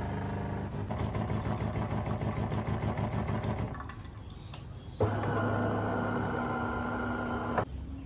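De'Longhi Magnifica S Smart bean-to-cup coffee machine running its pump. The hum pulses rapidly for a few seconds, eases off, then comes back steady and louder and cuts off abruptly near the end. This is typical of the start-up rinse pushing hot water through the spouts into the jug below.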